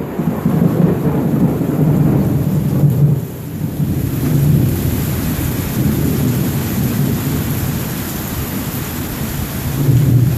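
Thunder rolling in a long, continuous rumble over steady rain. The rumble eases a little about three seconds in and swells again near the end.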